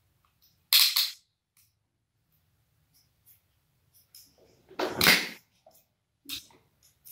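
Crimping pliers clamping a metal sleeve onto wires: two sharp clicks close together about a second in, then a louder snap and clatter as the tool is released and opens around five seconds in, with a smaller click after.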